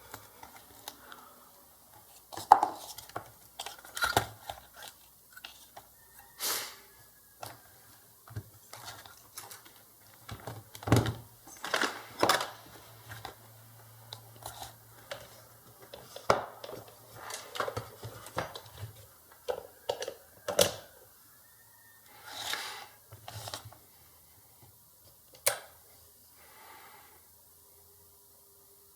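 Scattered clicks, knocks and rustles of hands working with test leads and tools on a workbench, with a faint low hum in the middle stretch.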